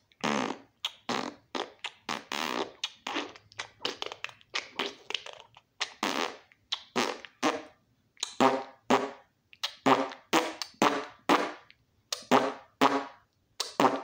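A man making a run of short nonsense noises with his mouth and voice, about two a second, some pitched and some breathy.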